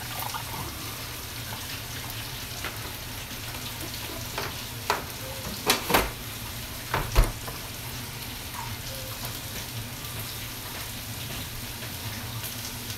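Milk pouring from a plastic jug into a glass, then a handful of sharp knocks and clunks as the jug is put back on the refrigerator door shelf, over a steady hiss.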